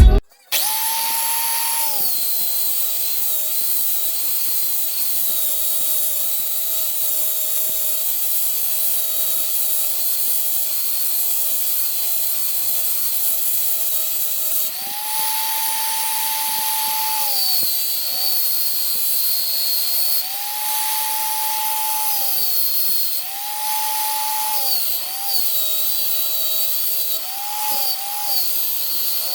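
Small electric power tool running continuously at work, its steady motor whine stepping up in pitch several times for a second or two each and then dropping back.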